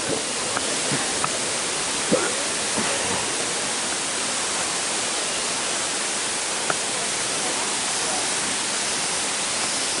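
Steady rush of the Durian Perangin waterfall, with a few faint clicks scattered through it, most in the first three seconds.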